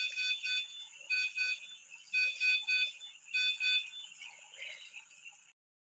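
Hospital bedside patient monitor alarm beeping in repeating groups of short high beeps, about one group a second, cutting off suddenly near the end.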